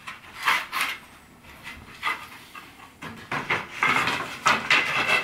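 Wooden bed slats of a strap-linked slatted base knocking and scraping against each other as they are handled: a few scattered knocks, then a busier stretch of clatter and scraping near the end.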